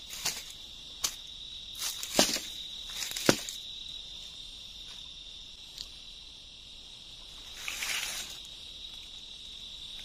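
A steady high-pitched insect drone, broken by sharp knocks of bamboo poles being handled against each other and the ground, the two loudest a second apart in the first few seconds. A rustle of dry leaves comes about eight seconds in.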